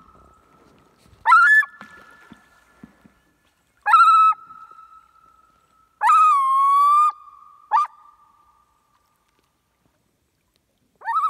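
Common loon calling: four loud, ringing calls about two seconds apart, the third held for about a second with a dip in pitch, each trailing off into a fainter steady tone. The calls of an excited mother loon whose chick is out of sight.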